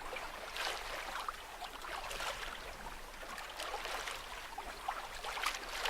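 Water splashing and washing along the hull of a small sailing yacht under sail, in uneven gurgles and splashes.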